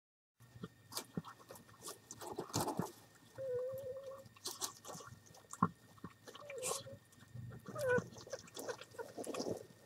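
American Hairless Terrier eating from a hand-held bowl: wet chewing and crunching over straw rustling, with a few short whines, one of them rising sharply in pitch about eight seconds in.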